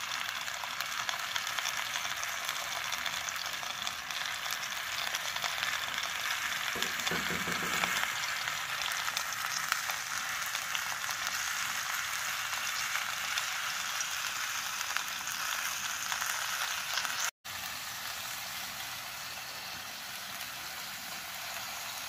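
Fish in thick coconut milk heating in a clay pot on a gas stove, sizzling and bubbling steadily as it is brought to the boil so the milk can thicken.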